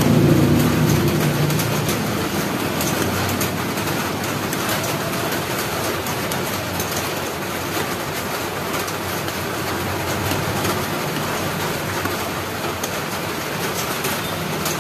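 Thick coconut and sugar kalamay mixture boiling and bubbling in a wide wok, with a metal ladle stirring and scraping through it to keep it from burning. The sound is steady throughout.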